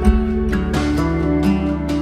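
Background music led by strummed acoustic guitar, with a steady beat.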